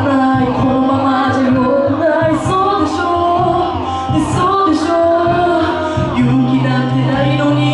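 A woman singing live into a handheld microphone over a backing track with a steady bass line and hi-hat strokes.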